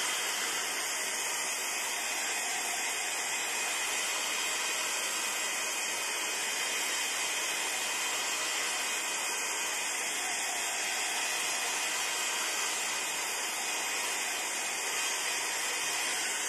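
Handheld craft heat tool blowing steadily, drying freshly applied metallic acrylic paint; a constant, even fan-and-air hiss with no change in pitch.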